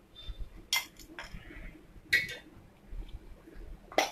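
Metal kitchen utensils clinking and scraping against a steel plate and frying pan as a fried patty is lifted out and set down to drain: a few short clatters, the loudest near the end.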